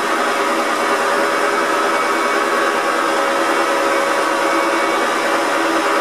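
Woodturning lathe running while a hand-held cutting tool turns down a spinning brass rod, a steady unbroken whir and hiss of the machine and the cut.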